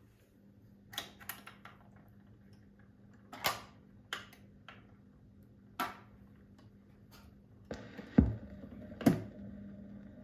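Bush SRP51 record player being handled: a run of light clicks and knocks, then a deeper thump about eight seconds in and another sharp knock a second later, after which a faint steady hiss sits over a low hum.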